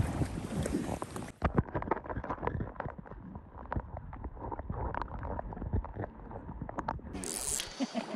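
River water heard through a camera microphone dunked beneath the surface: a muffled gurgling with a run of small clicks and knocks, all the high sound gone while it is under. Near the end a short burst of loud hiss.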